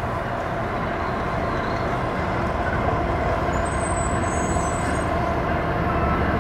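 GE ET44AH diesel-electric locomotive approaching, its engine rumble and a steady whine growing slowly louder as it nears.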